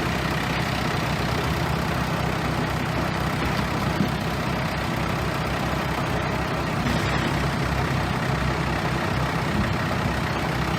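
Bulldozer's diesel engine running steadily, a continuous low hum with mechanical noise over it and a brief click about four seconds in.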